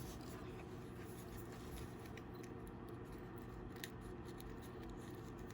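A few faint, small clicks and ticks of the replacement rear camera module being handled and pushed into place in an opened iPhone 6 Plus, one sharper click about two-thirds in, over a steady low hum.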